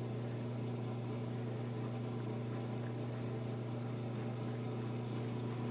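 A steady low electrical or machine hum, unchanging throughout, with no other sounds.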